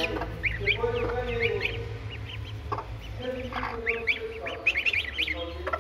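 Ducklings and goslings peeping: many quick, high chirps overlapping throughout, with two longer, lower calls underneath.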